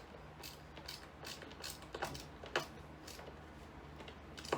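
Faint, irregular light clicks and ticks from flat-pack drawer-unit parts and hardware being handled during assembly.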